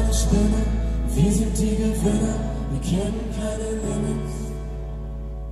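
Live acoustic band music with singing. The music grows quieter, ending on held low notes.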